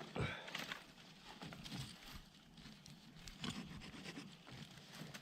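Hand saw starting to cut a piece of firewood: a few uneven rasping strokes that settle into a quicker, regular back-and-forth near the end.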